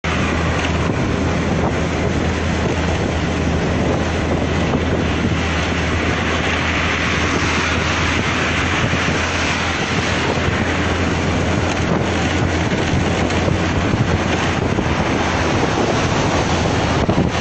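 Wind rushing over the phone's microphone on a moving motorcycle, a steady roar with a constant low hum underneath.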